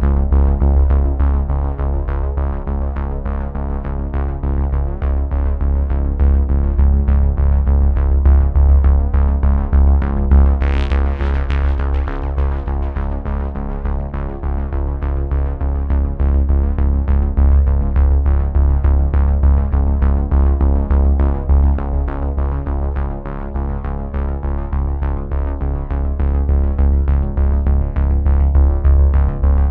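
Background electronic music: held synthesizer tones over a strong bass and a steady, quick beat, with a brief bright swell about eleven seconds in.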